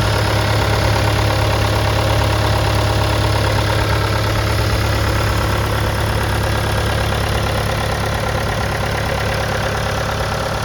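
Cat 236B3 skid steer loader's diesel engine running steadily at idle, with an even low hum.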